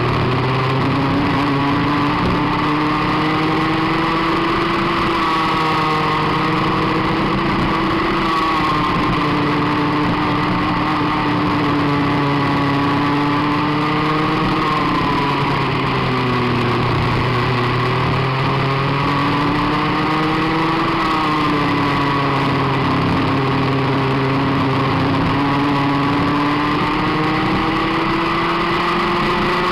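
Restricted Rotax Max 125cc single-cylinder two-stroke kart engine at racing speed, heard from on board the kart. Its pitch climbs and drops repeatedly as the kart accelerates and slows through the corners.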